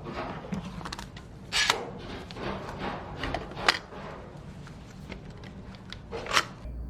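Hand tools being handled: irregular clicks, scrapes and rattles, with sharper knocks about one and a half seconds in, near four seconds, and near the end.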